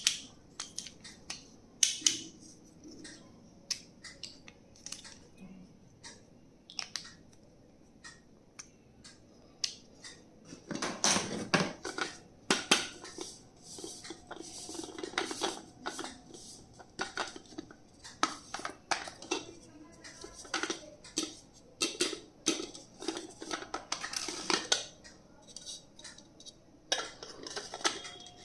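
Stationery items being unboxed and handled: an irregular run of sharp clicks and taps of hard objects, with a few short bursts of rustling.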